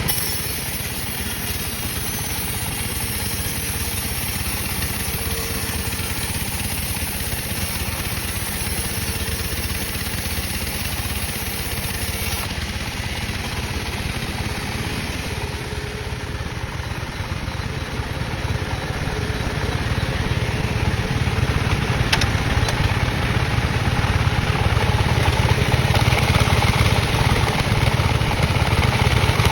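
Sawmill machinery running steadily with an engine-like hum, getting somewhat louder over the last third.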